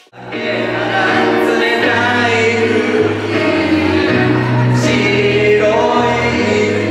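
Amplified live song: voices singing into microphones over a backing track with a steady bass line. It starts abruptly.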